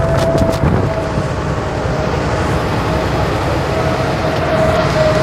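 Bus engine and road noise heard from inside the cabin, loud and steady, with a steady whine above the low rumble. A few rattles near the start.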